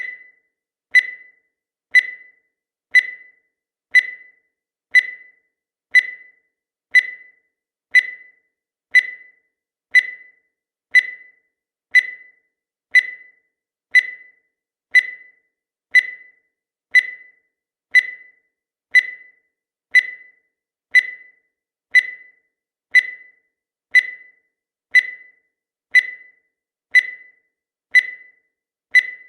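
Countdown timer sound effect: a short, high electronic beep once every second, each dying away quickly, about thirty in a row at an even pace.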